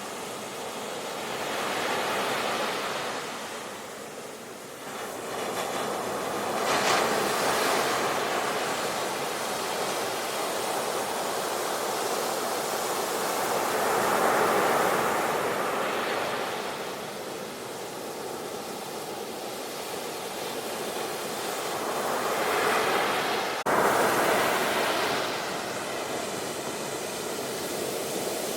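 Sea waves breaking and washing ashore, the surf rising and falling in several slow surges.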